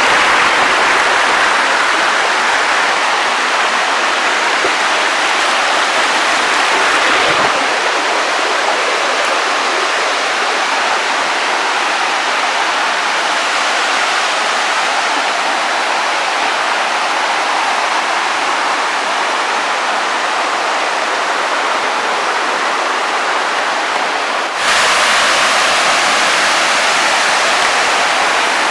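Waterfall rushing, a loud steady roar of falling water. Its level and tone shift abruptly twice, about a quarter of the way in and again near the end.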